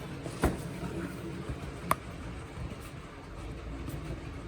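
Two sharp clicks about a second and a half apart from a model locomotive's box packaging being worked at to free the stuck loco, over a low steady hum.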